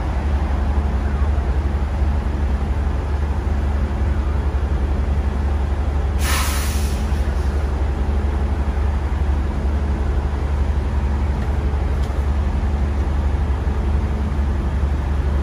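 Semi truck's diesel engine idling with a steady low rumble. About six seconds in, a short, sharp hiss of compressed air being let out, like an air brake.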